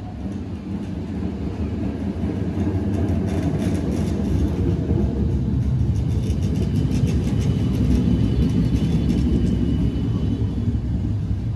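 1951 Canadian Car & Foundry PCC streetcar passing close by: a low rumble that builds as it approaches and is loudest about eight seconds in, with many light clicks over it and a faint high whine in the second half.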